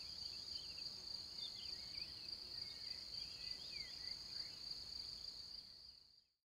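Faint outdoor ambience of crickets trilling steadily on one high pitch, with faint short chirps over it. It fades out near the end.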